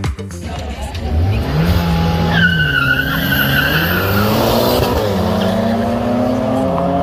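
Two cars launching side by side off a drag-strip start line. The engines rev up, tyres squeal for about two seconds, then the engines pull hard up through the gears, the pitch rising and dropping at each shift.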